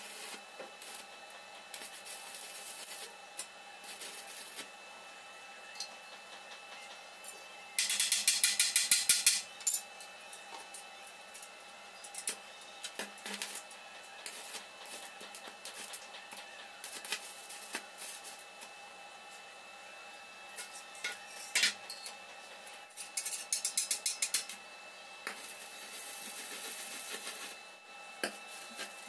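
Stick (arc) welding on a steel tube frame: short spells of arc crackle, the loudest a fast, even crackle about eight seconds in lasting a second and a half and another a little before the end. Light metallic clinks of the electrode and holder on the steel come in between.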